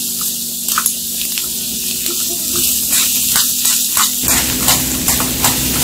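Chicken wings sizzling in a small metal wok over a gas burner, with a steady hiss and a utensil clicking and scraping against the pan as they are stirred.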